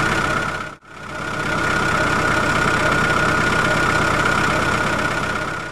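Tractor engine sound effect running steadily, with a held whine above the engine. It cuts out just under a second in and fades back up.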